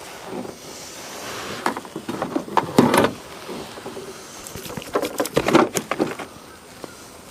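A fish being landed into a small boat, with irregular knocks and rattles against the boat in two clusters, around two seconds in and again around five seconds in.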